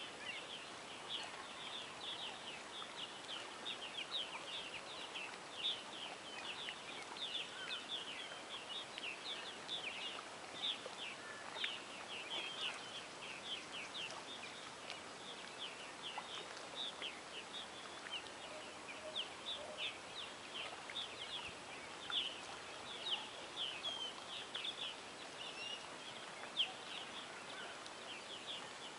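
Birds chirping in a dense, unbroken chatter of quick high chirps over a faint steady outdoor hiss. A few chirps stand out louder now and then.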